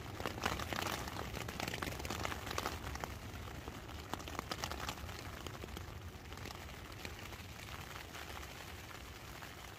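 Rain falling on a tent in a dense run of quick drop taps over a steady rush of wind in the trees overhead. The taps are heaviest in the first few seconds.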